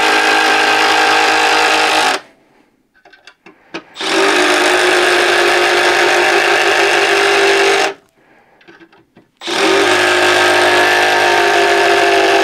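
Milwaukee M12 Fuel Surge hydraulic impact driver driving 3.5-inch deck screws into wood, one screw after another. It makes a steady, dense buzz without sharp hammer blows. One screw finishes about two seconds in, the next runs from about four to eight seconds, and the third starts at about nine and a half seconds, with short pauses and small clicks between screws.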